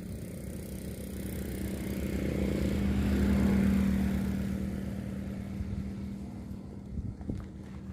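A motor engine running at a steady pitch as it passes by, growing louder to a peak about three and a half seconds in, then fading away.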